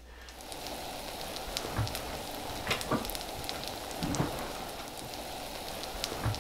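Oatmeal pancake batter frying on its first side in sunflower oil in a cast iron skillet: a steady sizzle with a few scattered pops and crackles.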